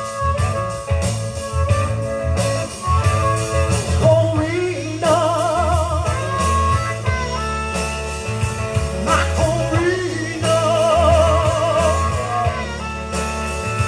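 A blues band playing live, with bass guitar, drum kit and guitar. A lead line holds long notes with a strong waver, twice.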